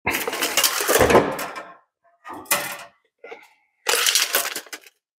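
Metal brake-line tubing being handled, clattering and scraping in four bursts with short gaps between.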